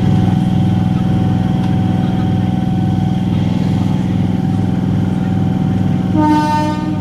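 Motor coach of a suburban EMU local train running, a steady traction-motor hum and whine at an even pitch. Near the end a short, buzzy higher note with many overtones sounds over it.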